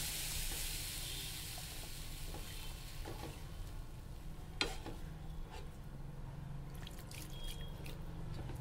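Water hissing and sizzling in a hot pan of fried semolina and vegetables just after it is poured in, the hiss dying away over the first couple of seconds. Then a wooden spatula stirs the wet mixture, scraping and knocking a few times against the pan.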